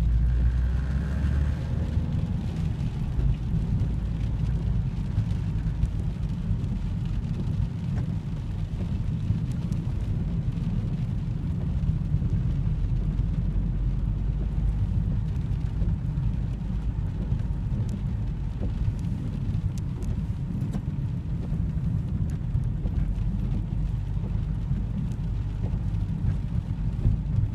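Car driving along a road, heard from inside the cabin: a steady low rumble of engine and tyres, with a few faint scattered ticks.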